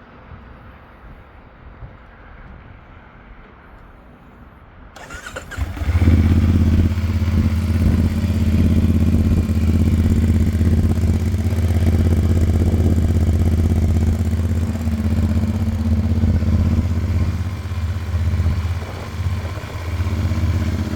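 CFMOTO 450NK motorcycle's parallel-twin engine on its stock exhaust: the starter cranks briefly about five seconds in, the engine catches and then idles steadily and loudly.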